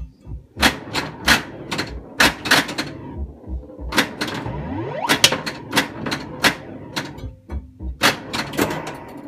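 Bally Space Invaders pinball machine in play: rapid sharp clacks of its flippers, bumpers and solenoids, about two or three a second, with a rising tone from the machine about five seconds in.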